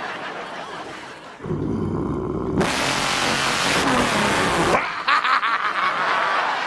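A man imitating a truck engine with his voice, revving it hard. A low rumble starts about a second and a half in, and a loud rushing hiss joins it and cuts off suddenly about two seconds later.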